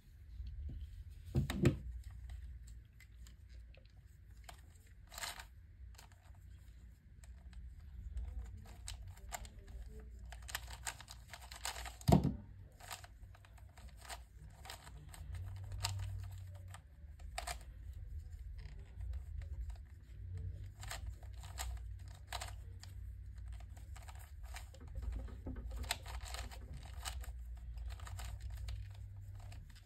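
Plastic clicking of a 3x3x3 Fisher cube being turned by hand, layer turns clicking in quick runs. Two louder thumps stand out, one near the start and one about twelve seconds in.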